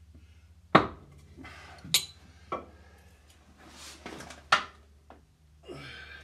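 A mallet knocking four times on the Cat 60 engine's cast-iron water manifold, the blows spaced unevenly over several seconds, to tap the manifold into alignment. Softer scraping and handling sounds come between the blows.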